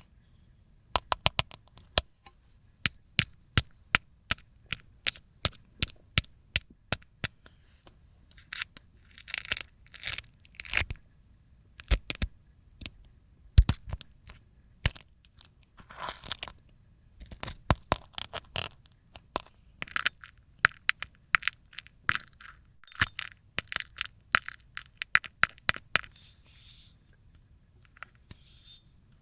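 A film of dried slime being peeled off a plate, cracking in many sharp separate snaps, with several stretches of denser crackling as larger pieces tear away.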